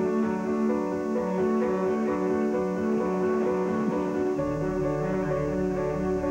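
Instrumental music with held notes that change every half second or so, and a deep bass line that comes in about four and a half seconds in. It plays off a VHS recording of a TV broadcast.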